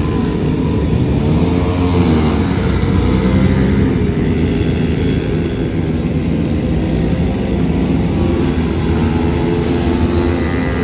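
Small engine of a ride-on bike running at speed, its pitch rising and falling as it revs.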